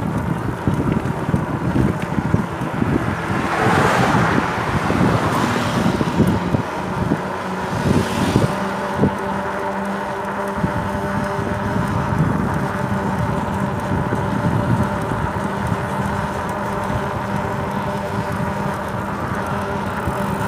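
Wind buffeting the microphone while riding along a road, with a steady hum. A vehicle swells past about four seconds in, and another near eight seconds.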